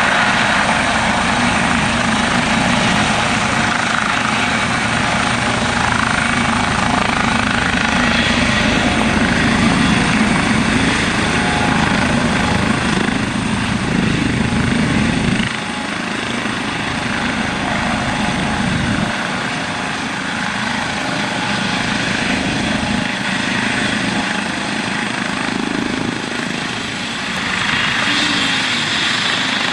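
Eurocopter EC135 helicopter with twin turboshaft engines hovering low and settling onto a helipad: a steady turbine and fenestron whine over a heavy rotor beat. About halfway through the low rotor beat drops away and the sound gets a little quieter as it sits down.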